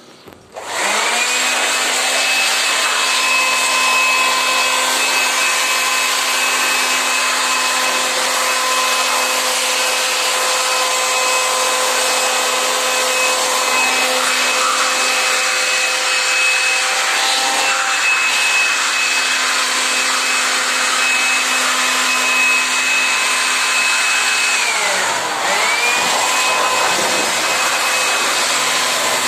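Electric pressure washer used for an AC water-wash cleaning: its motor starts with a rising whine and runs steadily under a loud spray hiss. About 25 s in the whine falls as the motor slows, then it quickly picks up speed again.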